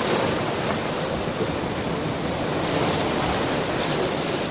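Ocean surf: waves washing in a steady, continuous rush of water.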